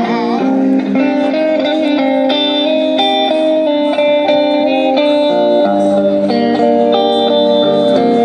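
Street musician playing an electric guitar through an amplifier: an instrumental passage of held chords and picked notes that change every second or so.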